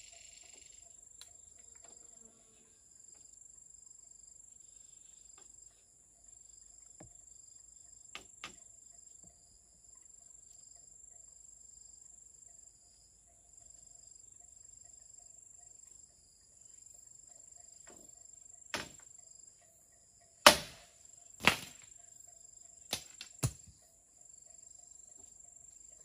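Steady high-pitched insect drone with a regular pulsing chirp, broken by a few sharp knocks on the wooden pole frame, the loudest two about two-thirds of the way through.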